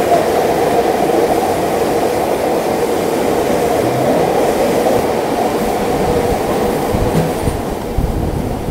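Rhaetian Railway Bernina line train running through a tunnel, heard from an open-air carriage: a loud, steady rumble of wheels on rail that gets quieter near the end as the train comes out of the tunnel.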